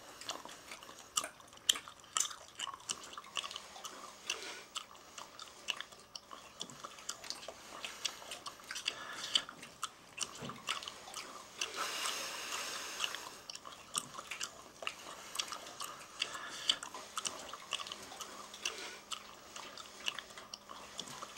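A person chewing gum with the mouth open, irregular wet smacks and clicks, with a brief hiss about halfway through.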